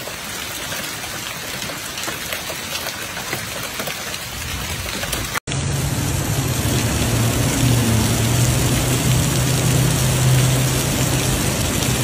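Heavy rain falling, a steady hiss of water. About five seconds in it cuts sharply to louder rain and water noise with a low steady hum underneath.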